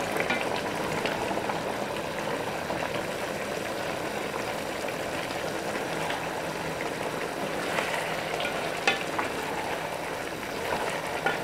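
Chicken pieces simmering in a sweet-soy bacem sauce, bubbling steadily, as broccoli florets are tipped into the pot and stirred with a wooden spatula. A few light knocks of the spatula against the pot come in the second half.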